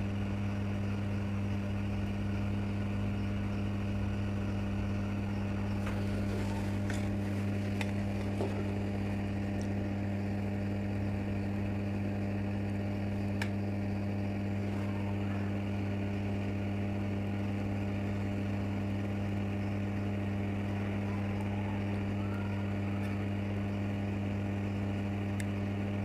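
Hot-air rework station blowing steadily on an ECM's CPU chip to melt its solder so the chip can be lifted off the board, a constant low hum. A few faint ticks come through in the first half as tweezers touch the chip.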